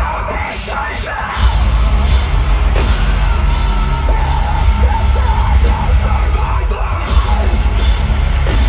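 A metalcore band playing live at concert volume, with screamed and yelled vocals over the music. The bass and drums are out at first, then the full band crashes back in about a second and a half in.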